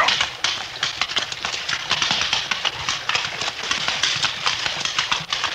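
Radio-drama sound effects of horses wading a creek with a rocky bottom: a dense, uneven run of hoof clops on stones over the steady rush and splash of running water.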